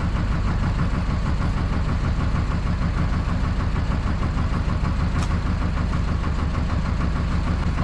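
Fishing boat's engine running steadily with a low drone, with a brief sharp click about five seconds in.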